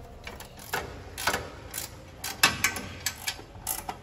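Ratchet wrench clicking in short irregular runs, mixed with metal clinks, as a bolt is run in to fix a new steel bumper bracket to the car's front cross bar.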